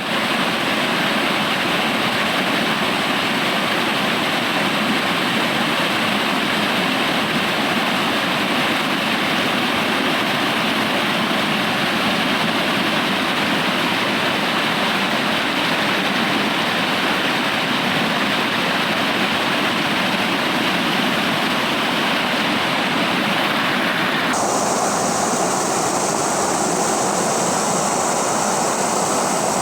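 River water rushing in a steady, even flow. About 24 seconds in the sound changes suddenly to a thinner, hissier rush.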